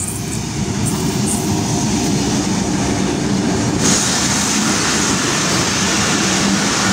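Passenger train passing close by: a steady low drone with wheels and coaches running over the track. The noise turns brighter and hissier about four seconds in, as the coaches go past.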